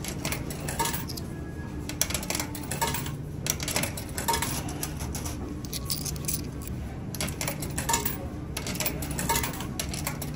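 Quarters being fed one after another into the coin slot of a Dexter coin-operated washing machine, a string of irregular metallic clinks as each coin drops in.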